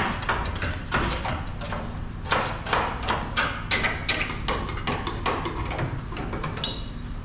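Irregular knocking and clattering on metal, several strikes a second, over a steady low rumble.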